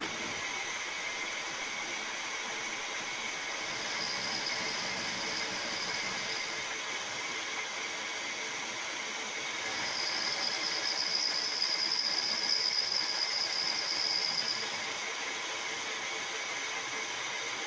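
Milling machine spindle running as an endmill cuts a metal part, a steady machine noise with a high-pitched cutting whine. The whine rises and gets louder twice, briefly about four seconds in and for several seconds in the middle.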